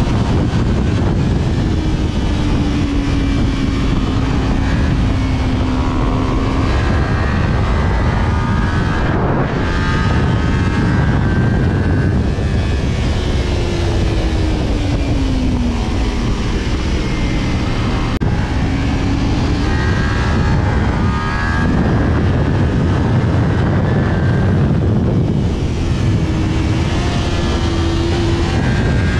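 Kawasaki Ninja 250R parallel-twin engine through an aftermarket WRX exhaust, heard from the saddle at riding speed under heavy wind noise. The engine note holds, drops away and climbs again several times as the throttle is rolled on and off through the bends.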